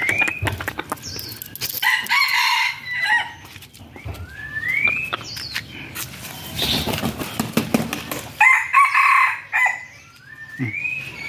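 Rooster crowing twice, once about two seconds in and again about eight and a half seconds in, with rising whistle-like calls between the crows.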